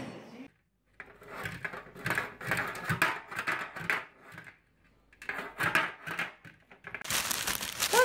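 Sun conure pushing and pecking at a metal baking pan on a countertop: irregular bouts of scraping and rattling tin, with a short pause about two-thirds of the way through. Near the end comes a rush of wing-flapping.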